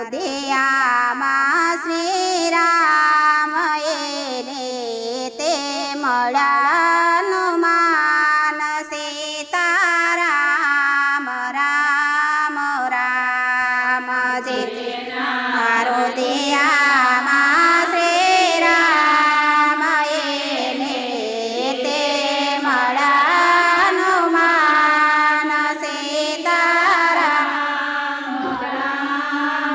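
A group of women singing a Gujarati devotional kirtan in unison, without pause, over a steady held low tone; the singing grows fuller about halfway through.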